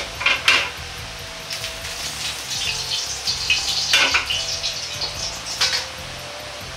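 Ladle and wok clinking a few times, with faint sizzling of hot oil in between, as the oiled wok is handled on a gas burner.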